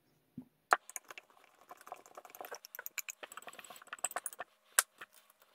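Hex driver and small screws clicking and ticking against an RC truck's aluminium chassis plate as parts are fastened, with a few sharper clicks among many light ticks.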